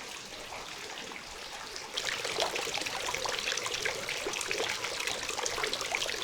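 Water running and splashing steadily, getting louder about two seconds in.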